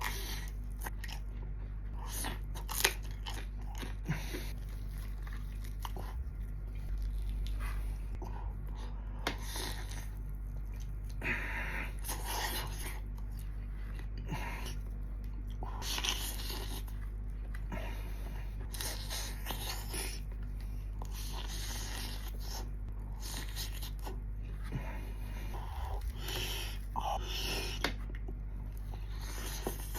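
Close-up eating sounds: biting into and chewing cireng, fried tapioca snacks, with irregular crunches and wet chewing over a steady low hum.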